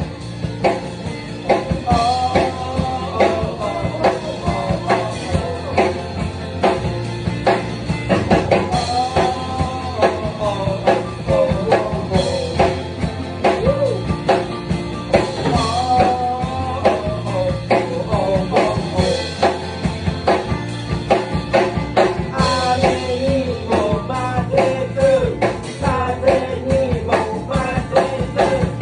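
Rock band playing: drum kit and bass under electric guitar, with a wavering, bending lead melody carried over the top.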